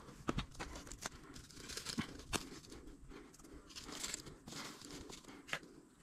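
Dry kindling being handled: thin pine-wood splinters snapping and dry pine needles rustling and crackling, with several sharp snaps spread through.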